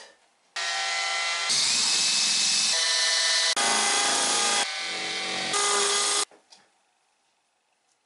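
Cordless drill with a 5 mm masonry bit drilling fixing holes into a plastered solid brick wall. The motor whine shifts in pitch and loudness several times as the bit bites, and the drilling stops about six seconds in.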